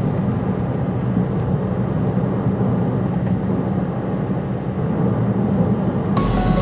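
Steady low rumble of a jet airliner passing high overhead. About six seconds in, it gives way abruptly to music with sustained tones.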